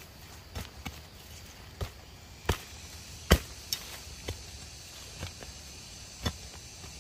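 A long-handled metal digging tool striking into soil and roots, about nine separate chopping strikes at irregular intervals, the loudest about halfway through, as a medicinal tuber is dug out of the ground.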